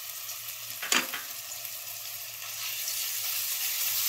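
Ginger-garlic paste sizzling in hot oil in a nonstick wok, with a spatula stirring it. There is one sharp knock about a second in, and the sizzling grows louder in the second half.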